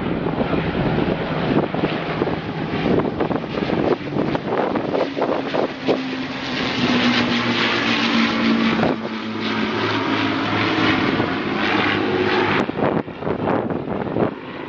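Piston engines of a formation of propeller aircraft (a four-engined bomber with two single-engined fighters) passing overhead: a steady engine drone that comes up strongest in the middle and drops away abruptly near the end, over heavy wind noise on the microphone.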